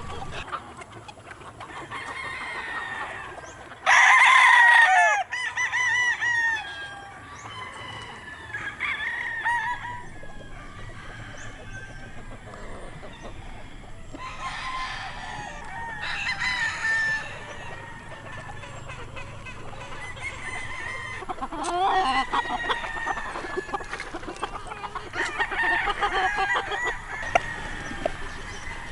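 Many gamecock roosters crowing and clucking over one another. The loudest crow comes about four seconds in, and further calls keep overlapping throughout.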